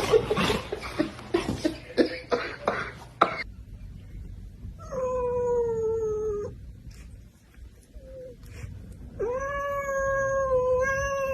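A domestic cat gives two long, drawn-out meows, with a short faint one between them. Before them, in the first few seconds, there is a stretch of scuffling and knocking.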